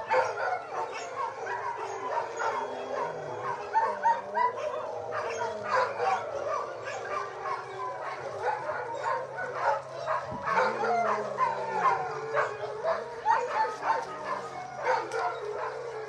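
Many dogs howling and barking together in a chorus: overlapping wavering howls that glide up and down, with sharp barks and yips all through. It is a group howl that one dog starts and the rest of the pack joins.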